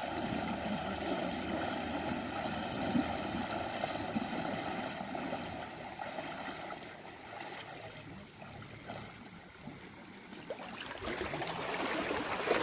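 Several people wading through shallow seawater, their legs splashing, over a faint steady hum. The splashing thins out about two-thirds of the way through, and rushing water rises again near the end.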